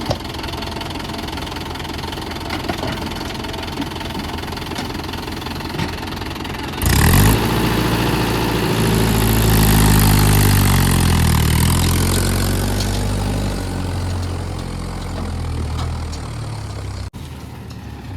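Diesel engine running steadily, then revving up sharply about seven seconds in, its pitch rising and falling for several seconds as it works under load. The sound breaks off abruptly near the end.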